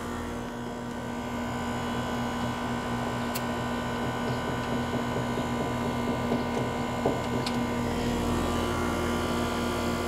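R-454B air conditioner's outdoor condensing unit running, a steady compressor hum with the condenser fan, and two faint clicks about three and seven seconds in.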